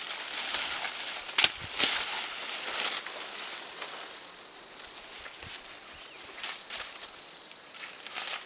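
Steady high-pitched insect chorus, with a few sharp knocks, the two loudest about a second and a half in.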